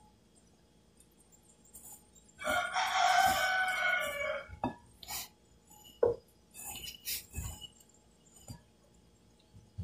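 A rooster crowing once, starting about two and a half seconds in and lasting about two seconds, its pitch dropping at the end. After it come a few short knocks and clinks from hands mixing grated coconut dough in a glass bowl.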